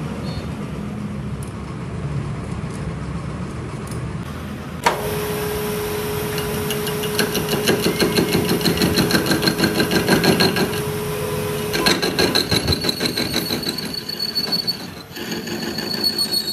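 Metal lathe cutting the end of a steel truck rear axle housing tube. A steady machine hum, then about five seconds in the tool bites with a sudden onset, a steady tone and a fast rattling chatter. Near the end this turns into a high-pitched squeal of the tool on the steel.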